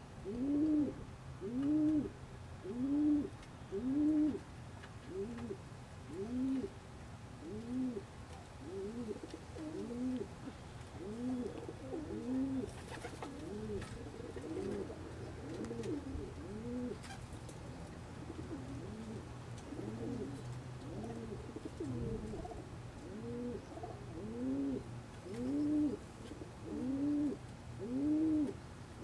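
Domestic pigeons cooing: a steady run of short coos, each rising and falling in pitch, about one a second. In the middle, several birds' coos overlap more faintly, and the coos grow louder again near the end.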